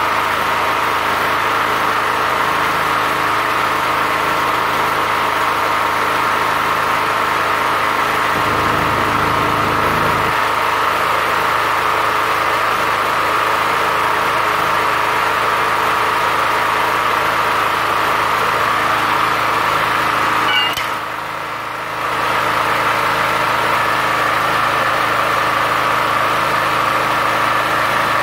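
Multipro GG-3900 gasoline generator running steadily, with an inverter welding machine plugged in and switched on. The sound dips briefly about two-thirds of the way through.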